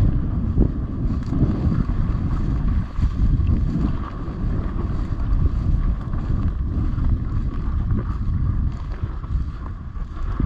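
Wind buffeting the microphone: a loud, uneven low rumble that goes on without a break.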